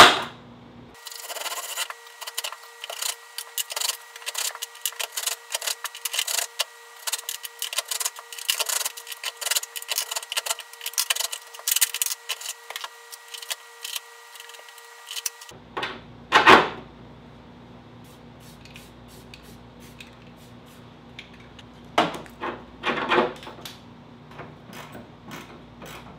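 Cordless drill running at a steady speed and cutting a hole through the car's sheet-metal floor pan: a constant whine under a dense, scratchy chatter. It stops about 15 seconds in and is followed by a sharp metallic knock and, a few seconds later, a couple of clusters of metal clinks from the harness hardware being handled.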